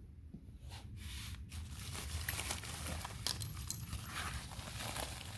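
Irregular clicks, clinks and rustling of hand tools and small metal parts being handled while starting work on a horizontal-shaft tiller engine, getting busier after about a second.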